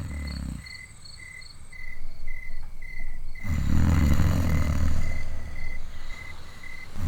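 A woman snoring: the tail of one snore at the start, then one long, loud snore from about halfway through to near the end. Crickets chirp steadily underneath, about two chirps a second.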